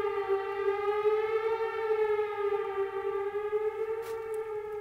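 Outdoor tornado warning siren sounding a steady tone that wavers only slightly in pitch and fades a little near the end. The siren is evidently malfunctioning, going off with clear skies and no storm.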